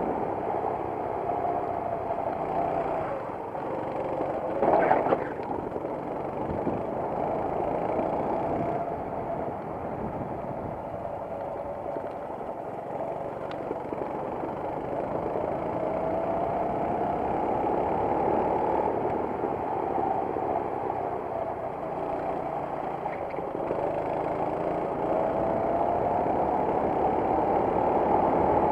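Racing kart engine heard on board at racing speed, its pitch climbing on the straights and dropping as it slows for corners, several times over. About five seconds in there is a brief loud burst of noise.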